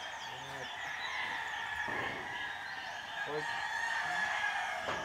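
A rooster crowing before dawn over a steady chorus of insects and small chirping calls.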